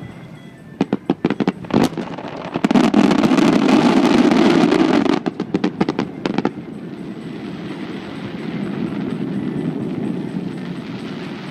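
Aerial fireworks going off: a run of separate sharp bangs that builds into a dense crackling barrage for about three seconds, then a last scatter of bangs about six seconds in. A steady even noise remains afterwards.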